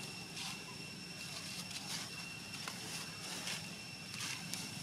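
Outdoor background ambience: a steady high-pitched whine on two pitches over a low rumble, with faint scattered soft clicks.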